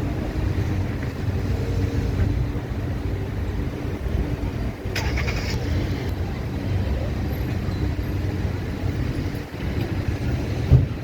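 Wind blowing, a steady low rumble with a brief higher hiss about five seconds in and a short thump near the end.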